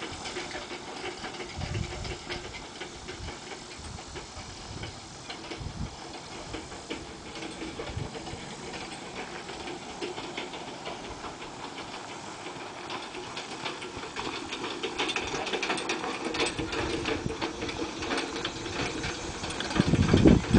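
Half Andalusian, half Clydesdale filly trotting on packed dirt while pulling a two-wheeled training cart: hoofbeats with the cart's rattle and rolling wheels, growing louder as they come close near the end. Near the end there are also a few loud low thumps.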